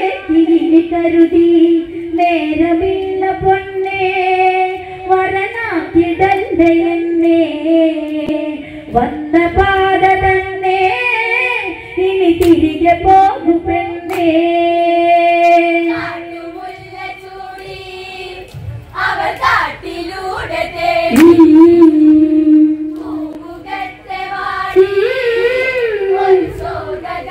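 Onamkali folk song in Malayalam sung by a group of women's and girls' voices together, with long held notes.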